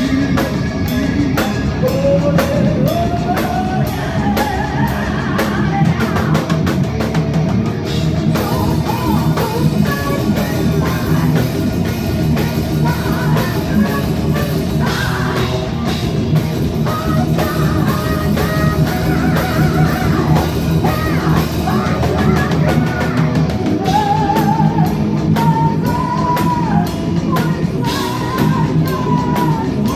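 Live heavy metal band playing: a woman singing over distorted electric guitars, bass and a fast, driving drum kit. The singing comes and goes between guitar passages.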